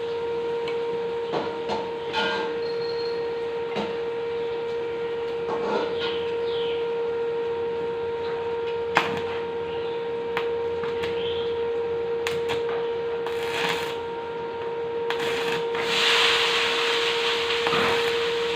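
Welding machine humming steadily at one pitch, with scattered taps and knocks of steel tubing being handled, one sharp knock about halfway, and a couple of seconds of hissing crackle near the end.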